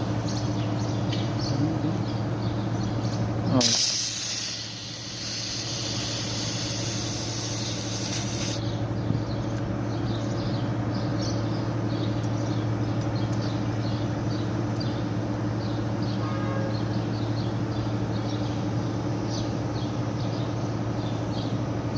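Putzmeister concrete pump's engine running with a steady hum. A few seconds in, nitrogen gas hisses loudly for about five seconds, then cuts off, during the charging of the pump's N2 gas accumulator.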